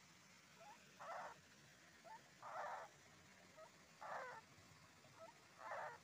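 Kingfisher nestlings calling in a regular rhythm, about every second and a half: each time a faint short rising chirp, then a longer, louder raspy note, four times.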